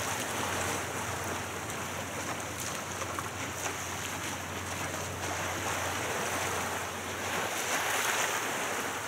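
Waves splashing against the harbour seawall, with wind on the microphone: a steady wash of noise with no distinct events.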